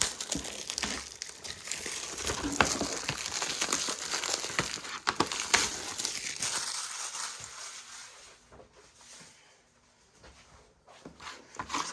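Crinkling and tearing of plastic wrap being peeled off a DVD case, with sharp crackles and clicks for several seconds before it dies away near the end.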